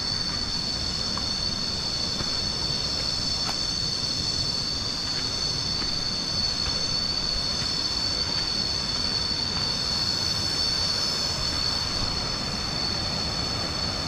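A chorus of cicadas giving a steady, high-pitched, unbroken buzz, over a low uneven rumble.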